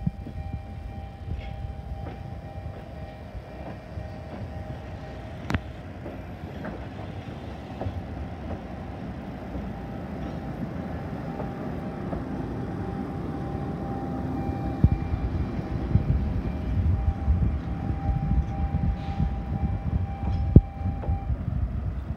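Fukui Railway tram running slowly over the depot tracks: a low rolling rumble with a steady hum that grows louder as it passes close, and a few sharp clacks of the wheels over rail joints and points.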